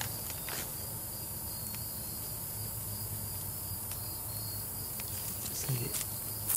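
Crickets chirping steadily in the grass, with a few faint rustles from a stick poking through dry grass and leaves near the end.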